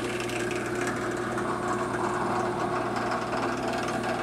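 Drill press running steadily, a steady motor hum, while a No. 21 drill bores a blind hole in a steel shotgun barrel in a series of pecks.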